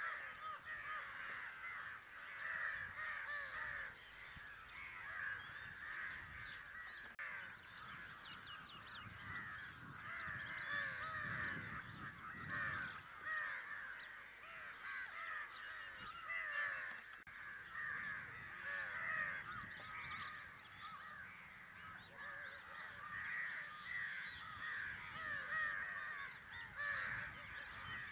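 A dense chorus of many birds calling over one another without a break, with a faint low rumble for a few seconds around the middle.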